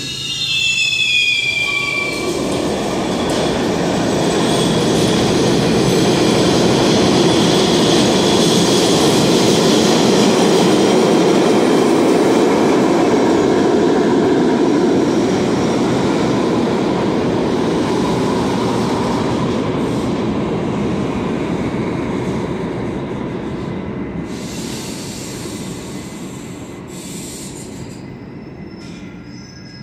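A New York City subway B train pulling out of an underground station: a brief falling squeal of the wheels at the start, then the rumble and rattle of the cars on the rails builds to its loudest about ten seconds in and slowly fades as the train leaves.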